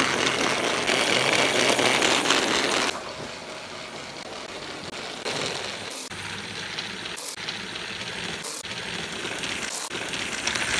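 Battery-powered TrackMaster Thomas toy train's small motor and gears whirring as it runs along plastic track. The whir is loud for the first three seconds, then drops suddenly to a quieter, steady whir with a few faint clicks.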